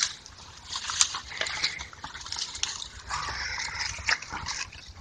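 Cloth rustling and scraping against the camera's microphone as it is carried pressed to a shirt, with scattered light clicks and crackles, several of them about four seconds in.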